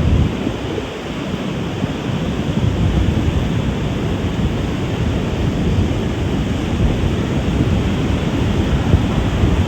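Wind buffeting the microphone over the rush of breaking surf: a steady, low rumbling noise that swells in gusts.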